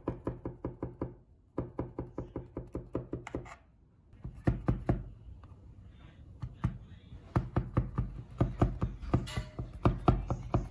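A knife cutting through buttered phyllo pastry in a metal baking tray with quick up-and-down strokes: rapid knocks, about six a second, in runs of a second or two with short pauses between.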